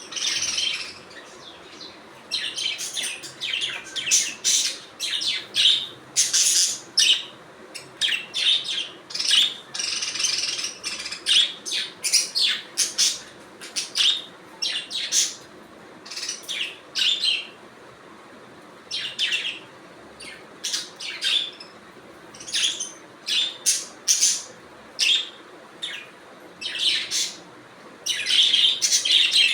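Budgerigars chirping in quick, irregular runs of short high calls, with a brief lull a little past the middle.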